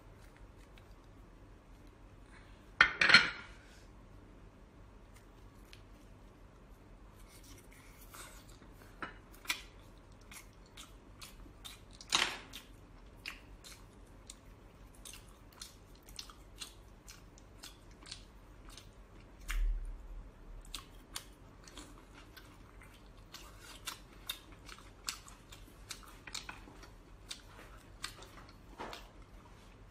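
Eating and handling of sea snail meat by hand: many small wet clicks and smacks. A few louder sudden clattering noises stand out, the loudest about three seconds in and another about twelve seconds in.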